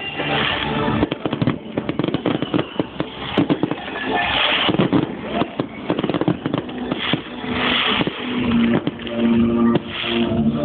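Fireworks show: a dense run of bangs and crackling bursts, with music playing underneath.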